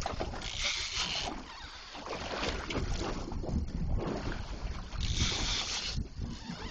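Wind buffeting the microphone over water noise on an offshore fishing boat, with two short hissy surges, one about half a second in and one about five seconds in.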